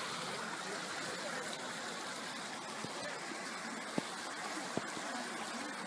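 Steady rushing of a stream or small waterfall, with two brief clicks about four and five seconds in.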